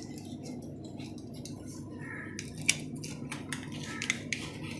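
Utility knife blade scraping and clicking against a stainless steel sink rim as it cuts through the old silicone seal along the granite countertop. It is a run of irregular scrapes and sharp ticks, the loudest about halfway through and two more near the end, over a steady low hum.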